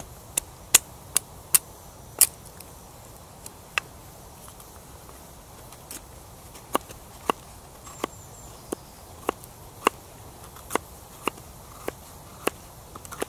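Knife whittling green sticks into skewers on a wooden log stump: a series of sharp clicks as the blade strokes and bites into the wood, roughly one every half second to second, with a pause of a couple of seconds in the middle.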